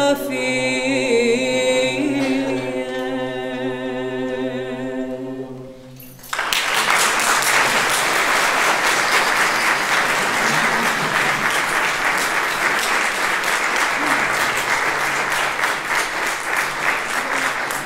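A cappella choir holds the closing chord of a Romanian Christmas carol, dying away about six seconds in. Then the audience starts applauding, a steady clapping that runs on.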